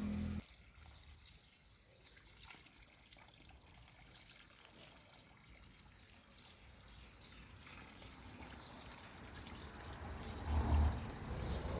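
Faint trickling water, growing gradually louder toward the end, with a brief low thump near the end. A low steady hum cuts off just after the start.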